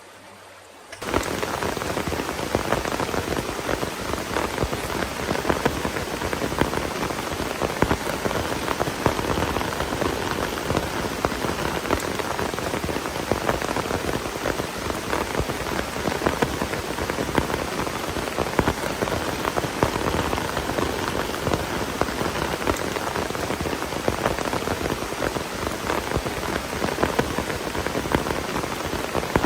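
Heavy rain falling steadily, a dense patter of many drops, coming in suddenly about a second in.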